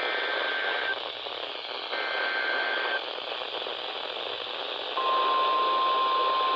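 Emergency Alert System header received over NOAA Weather Radio with heavy static hiss. Two buzzy, high-pitched SAME data bursts of about a second each, a second apart, are followed about five seconds in by the steady single-pitch weather radio warning alarm tone.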